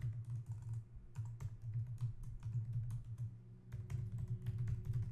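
Typing on a computer keyboard: a fast, irregular run of key clicks over a low steady hum.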